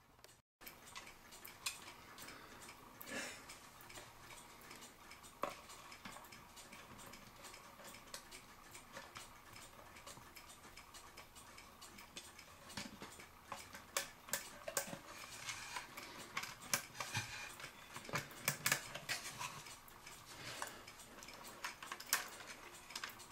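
Faint, irregular clicking and rattling of a cuckoo clock's metal weight chain being handled and fed onto the movement, with light knocks against the wooden case. The clicks come thicker in the second half.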